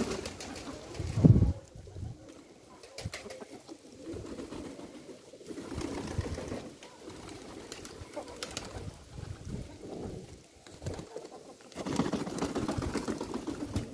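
Domestic pigeons cooing on and off, with a low thump about a second in.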